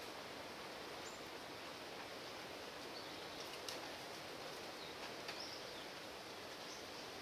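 Quiet outdoor ambience: a steady hiss with a few short, faint bird chirps and a couple of small clicks.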